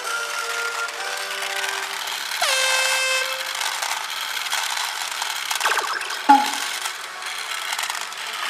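Sound effects and music from a P Million God Ichigeki pachinko machine: about two and a half seconds in, a loud horn-like blast drops in pitch and holds for about a second, and near the six-second mark there is a sharp hit with a falling tone. These are the machine's effects as the V is hit and it goes into a jackpot.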